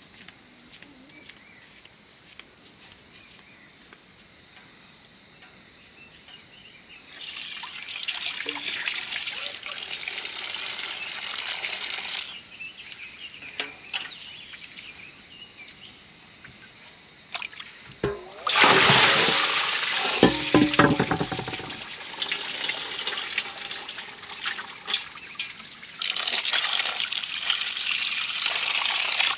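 Water pouring and splashing in three spells, about seven seconds in, the loudest from about eighteen seconds in, and again near the end, with a few knocks during the loudest spell.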